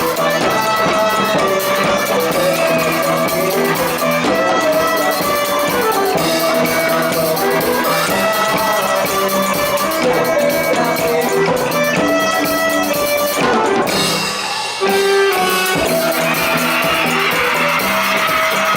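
A marimba band playing a piece, with sustained chords of mallet notes; the music breaks off for a moment about fourteen seconds in, then carries on.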